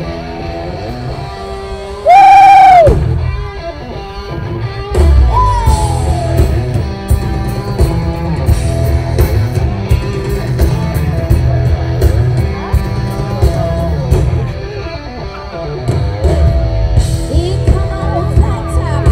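A live rock band plays, with electric and bass guitars, drums and keyboard, and a woman singing. About two seconds in a very loud held high note rings out for under a second. Around five seconds in, the drums and bass come in heavily and carry on.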